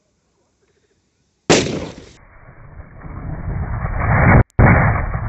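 Plastic PET bottle bursting from hydrogen gas pressure built up by aluminium foil reacting with hydrochloric acid: a sudden loud bang about a second and a half in, followed by loud rushing noise that swells again later.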